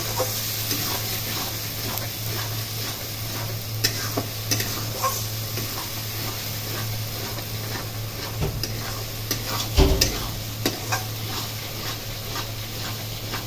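Spatula stirring and scraping a thick masala paste in a metal kadai as it sizzles in oil while being sautéed down (kasha). Scattered clicks of the spatula on the pan, the loudest a knock about ten seconds in, over a steady low hum.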